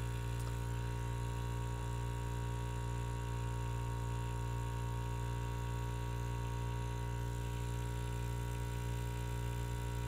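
Small mains-powered airbrush air compressor running steadily: an even, constant hum with a low drone, about 60 decibels on a phone sound meter.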